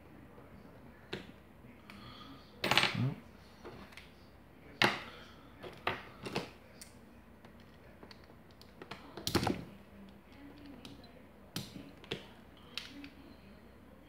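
Irregular sharp metallic clicks, taps and clatters from a brass lock cylinder being handled with a steel pick and a pair of multi-tool pliers while it is taken apart. The loudest come about 3, 5 and 9 seconds in.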